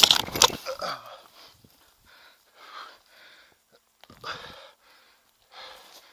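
Rockrider 8.0 mountain bike crashing on a dirt trail: a loud clatter of impacts right at the start cuts off the rolling trail noise. The fallen rider then breathes hard in a string of gasping breaths.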